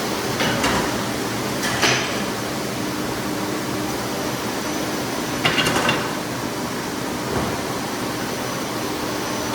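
Automatic bandsaw for cutting ice blocks running with a steady hum, with short clattering knocks about half a second in, near two seconds, and a quick cluster around five and a half seconds.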